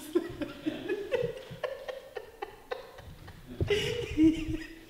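A man laughing and chuckling, with some voice in the room and short sharp clicks scattered through; the laughter is loudest near the end.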